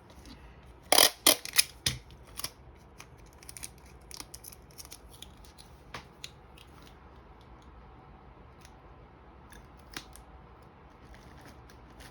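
Small handling noises while items are arranged in a gift basket: a quick cluster of sharp clicks about a second in, then scattered lighter clicks and ticks, with one more sharp click near the end.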